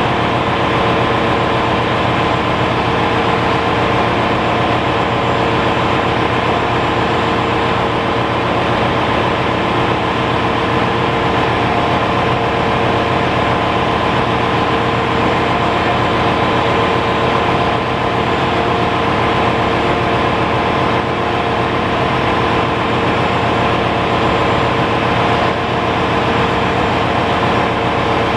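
Ship's engine-room machinery running: a loud, steady drone with steady whining tones over it. The main engine is stopped for overhaul, so this is the ship's auxiliary machinery running.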